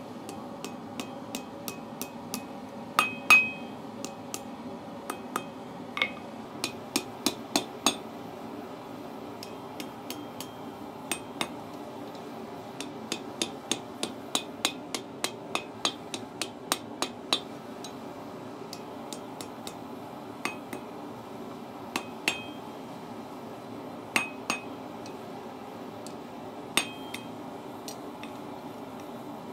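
Hand hammer striking hot steel on a small 30 kg anvil while forging a hook. The blows are irregular, sometimes in quick runs of several a second, each with a short metallic ring, over a steady background hum.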